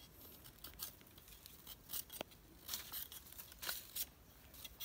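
Knife shaving a thin rattan strip, thinning it into the reed of a Khmer kite's hummer bow: a string of short, irregular scraping and crackling strokes as fibres peel off.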